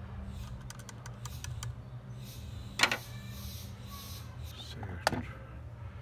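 Hand tools handled on a workbench: a screwdriver set down and pliers picked up, with small clicks and two sharp knocks, the first about three seconds in and the second about two seconds later, over a steady low hum.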